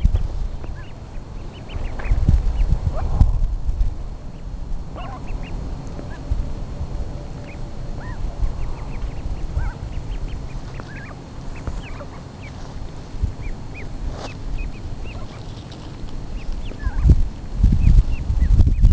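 Ducks and ducklings calling: many short, high peeps scattered throughout, over a low rumble that swells briefly about two seconds in and again near the end.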